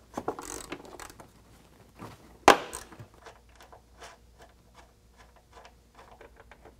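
Hand ratchet with a 12 mm socket clicking in quick runs as factory bolts are backed out of a truck's rocker panel, with one sharp metallic clink about two and a half seconds in.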